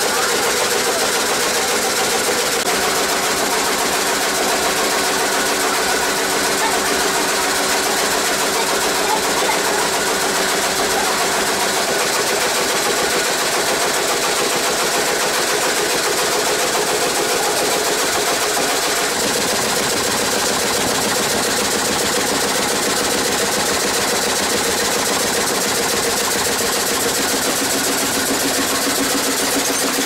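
Sawmill machinery running: steady mechanical noise from the saws and feed rollers, with a few held tones that shift in pitch a couple of times as different machines come into hearing.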